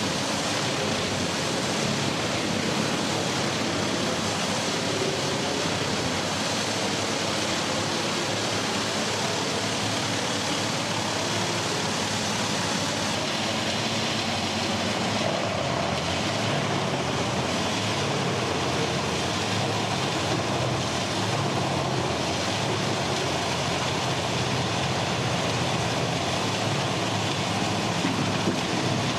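Wood chipper machine running steadily: a constant dense noise with a low engine drone underneath, no separate strikes or changes.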